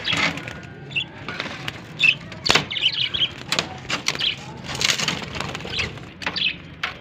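Budgerigars chirping in short high calls while wood and wire mesh knock and rattle in irregular clatters as the cage is handled.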